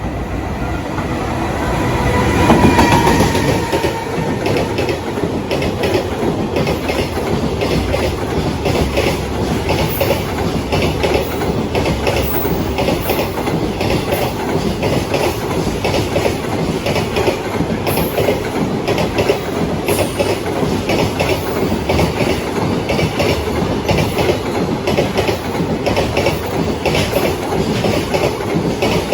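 A freight train hauled by an electric locomotive passes close by. The locomotive goes by loudest about two to three seconds in, then a long string of container wagons follows, their wheels clattering over the rail joints in a steady rhythm.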